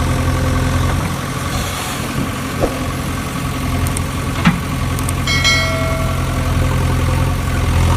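A vehicle engine idling with a steady low drone. There are two short clicks near the middle, and a brief high tone about five seconds in.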